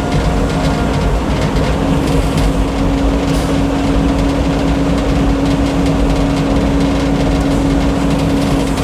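Old Frick sawmill running steadily: a continuous loud mechanical hum from the mill's power and circular saw, with a steady tone that comes up about two seconds in and holds.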